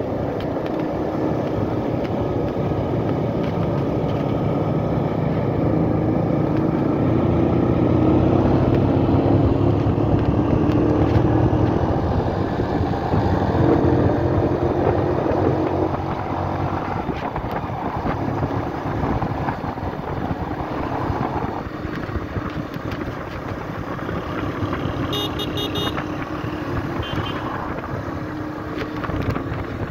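Motorcycle engine running while riding along a road. The engine note climbs gradually, then falls off about halfway through.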